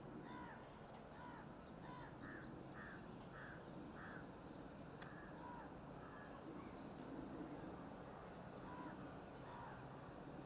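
Crows cawing faintly: a run of repeated caws about two a second over the first four seconds, then a few scattered caws, over a faint steady low background hum.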